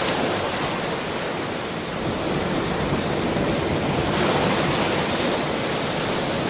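Ocean surf: waves breaking and washing on a shore in a continuous rush, swelling a little about four seconds in.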